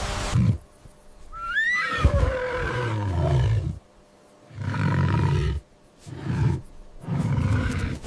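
A large animal roaring: one long, deep roar, then three shorter roars with brief pauses between them.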